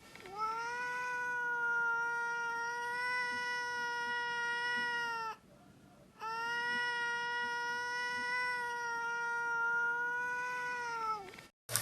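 A cat yowling twice, each call about five seconds long and held at a steady pitch, with a short break between them.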